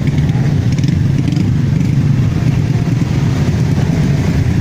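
Engines of a crowd of small motorcycles, classic Honda CBs among them, running at low revs in slow, packed traffic. The result is a steady, dense rumble with no single engine standing out.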